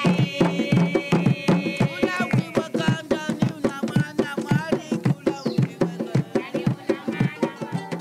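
An elderly woman singing over a fast, steady drum beat.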